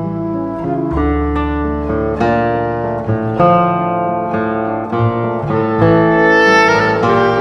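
Tango milonga played by a trio: a nylon-string classical guitar plucks the melody over held double-bass notes, with a saxophone in the ensemble.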